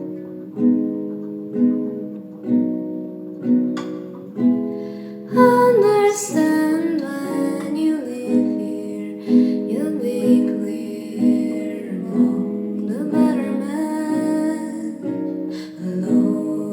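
Music: a guitar plucking a repeated chord about once a second, with a wordless voice gliding over it from about five seconds in.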